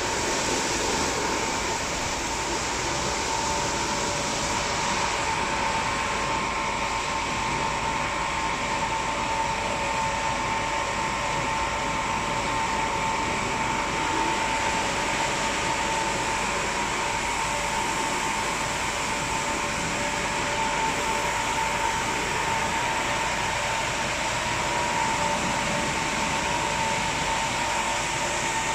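Christ Varius rollover car wash machine running steadily: a constant whirring noise with a steady whine through it.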